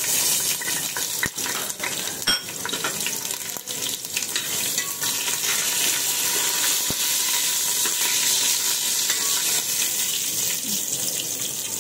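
Whole spices (bay leaves, cumin, star anise, cinnamon) sizzling in hot oil in an aluminium pot: a steady frying hiss, stirred with a steel spatula that knocks against the pot a few times.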